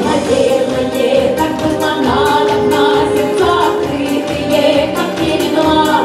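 Russian folk song sung by a group of voices with accordion accompaniment, brisk and lively over a steady beat.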